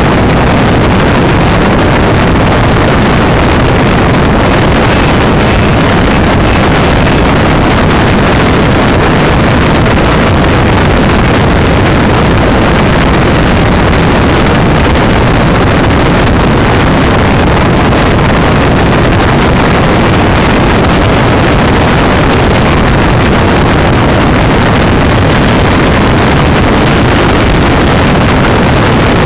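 Steady, loud rush of wind on the microphone and tyre rumble aboard a Greenpower electric racing car running at speed, with no engine note.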